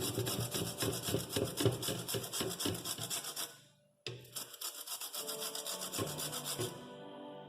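A lime (citron) rubbed against a hand grater to take off its peel, in quick, steady rasping strokes. The strokes break off briefly about four seconds in, then resume.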